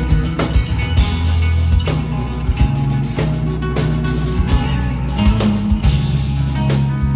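Live instrumental progressive metal: electric guitar and drum kit playing together, with held low guitar notes under sharp drum and cymbal hits.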